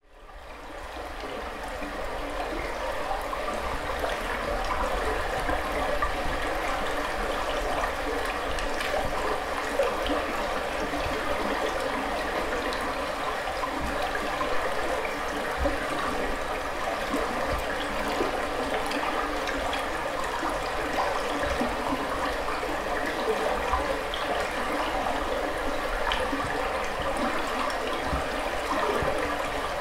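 Shallow river running over a stony bed: a steady rushing and babbling of water that fades in over the first few seconds, with a low rumble underneath.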